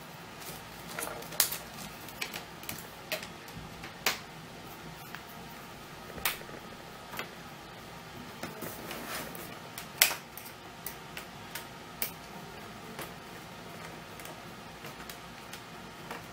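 Scattered sharp clicks and light taps of a tiny Phillips screwdriver and fingers working the small screws and metal frame of a laptop screen assembly, irregular, with the loudest clicks about a second and a half, four and ten seconds in.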